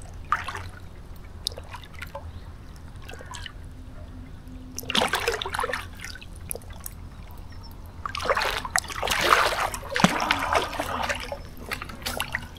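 Water splashing and trickling around a landing net holding a just-landed carp, in short bursts about five seconds in and again from about eight seconds in.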